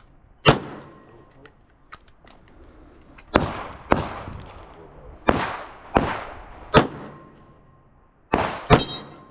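Revolver shots fired during a USPSA stage: eight sharp reports, one about half a second in, then after a pause of nearly three seconds a run of shots in pairs and singles, the last two close together near the end.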